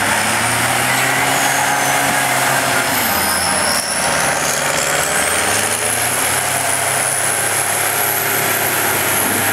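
Twin-engine Fordson Doe tractor's diesel engines running hard under full load while pulling a weight-transfer sled. The engine note sags about three seconds in and then picks up again, and a high whine climbs in pitch through the second half.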